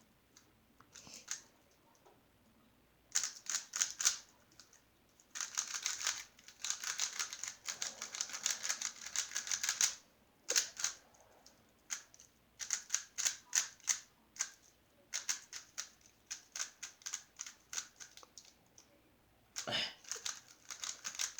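A new Gans 356S V2 Lite 3x3 speedcube being turned by hand for its first turns: quick runs of plastic clicking as the layers snap round, in several bursts with short pauses between them.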